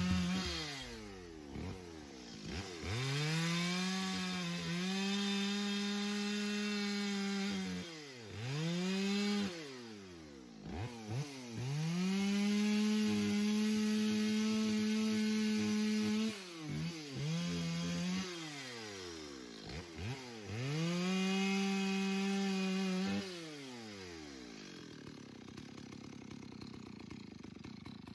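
Two-stroke chainsaw revved up to full throttle and held there for a few seconds at a time while cutting through a windfall trunk, dropping back to idle between cuts. It does this about four times, then winds down near the end.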